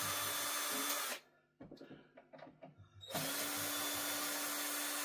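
Cordless power screwdriver running in two spells of about two seconds each, with a steady motor hum, unscrewing screws from a subwoofer cabinet. Light clicks and taps of handling come between the two spells.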